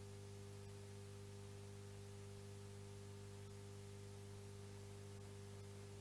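Near silence: a faint, steady mains hum with hiss from the audio feed.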